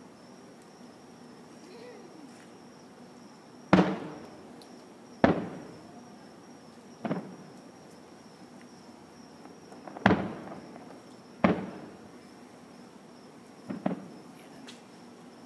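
Aerial firework shells bursting: six sharp booms a second or more apart, each trailing off in a rolling echo.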